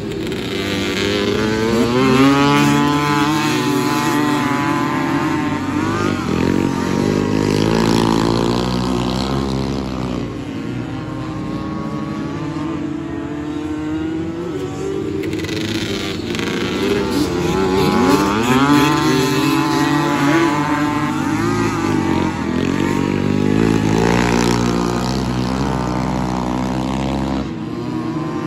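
Several two-stroke ATV engines racing, their pitch rising and falling as the riders rev and shift. The sound swells three times as the pack comes past and eases in between.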